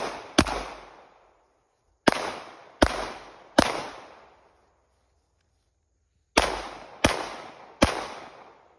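Seven gunshots fired in quick strings: one, then three about three-quarters of a second apart, then after a pause of about two and a half seconds three more at the same pace. Each shot rings off with an echo for about a second.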